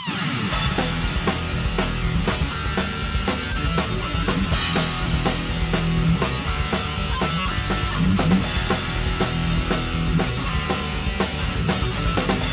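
Instrumental break in a rock song: a drum kit keeps a steady beat under bass and electric guitar, the full band coming in about half a second in.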